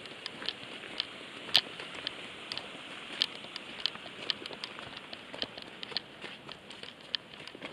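Footsteps crunching on a loose gravel track, with irregular sharp clicks of stones underfoot.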